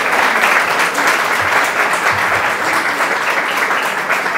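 Audience applauding: steady, loud clapping from many hands.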